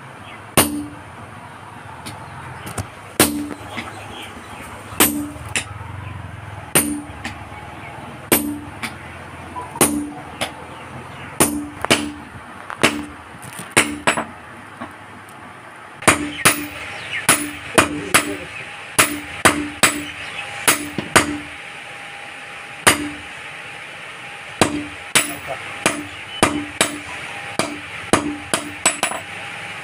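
Hand hammer striking a red-hot steel cleaver blade on a small iron anvil, each blow a sharp ringing clang. The blows come about one every second and a half at first, then faster and more closely spaced in the second half.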